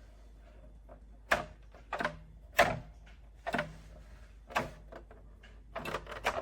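A series of sharp clacks or knocks, about six, spaced roughly a second apart, one of them doubled near the end.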